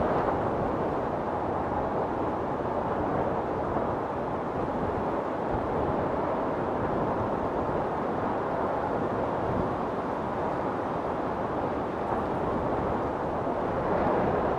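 A steady, even rushing noise with no tune or rhythm.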